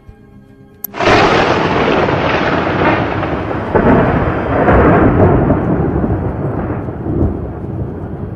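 A thunderclap: a sudden loud crack about a second in, then a long rolling rumble that swells several times and slowly fades.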